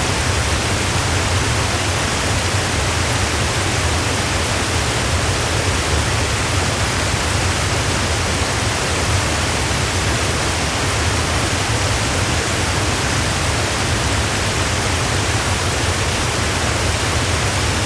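Waterfall: a steady, unbroken rush of falling water, with a deep rumble under an even hiss.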